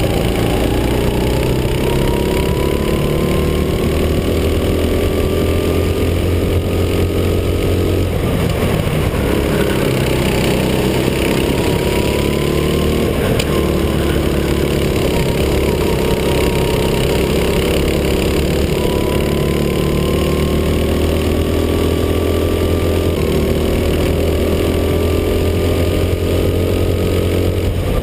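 Go-kart engine heard from on board at racing speed, its note climbing steadily along each straight and dropping back as the driver lifts for the corners, about five times. A steady rush of wind and tyre noise runs under it.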